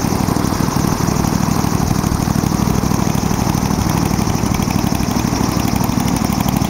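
Briggs & Stratton 23 hp V-twin four-stroke engine of a paramotor trike, running steadily while it turns a two-blade propeller through a belt reduction drive.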